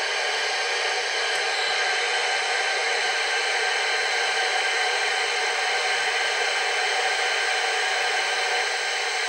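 Alba CBH2 handheld FM CB radio's speaker giving out a loud, steady rush of receiver hiss with the squelch opened, as its channels are stepped through and no station comes in.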